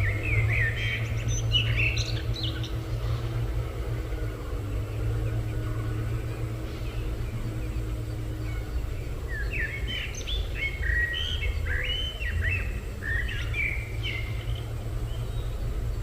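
Small bird chirping in two bouts of quick, short high notes, one at the start and a longer one from about the middle, over a steady low rumble of outdoor background noise.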